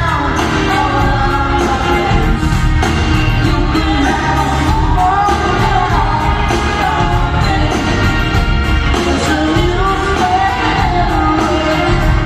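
Live band performing a rock/pop song with a lead singer over bass and drums, played loud and steady through an arena PA.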